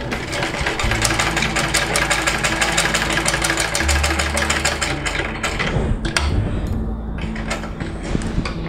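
Household straight-stitch sewing machine running a test seam, a rapid, even clatter of needle and mechanism that stops about six seconds in, followed by a few single clicks. The seam checks the bobbin stitch just after the upper thread tension was tightened.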